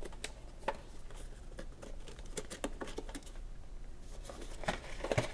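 Hands handling and opening a cardboard action-figure box: scattered faint taps, clicks and light scrapes of the cardboard, with a few sharper knocks near the end.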